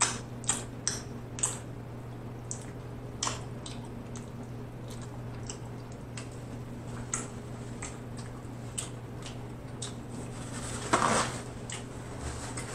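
Close-miked eating: chewing, lip-smacking and wet mouth clicks from a person eating saucy barbecue ribs, scattered irregularly over a steady low hum, with one longer, louder noise about eleven seconds in.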